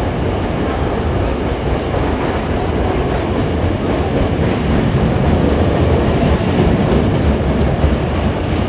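Hankyu electric commuter train running on the rails: a steady, loud rumble with wheel clatter.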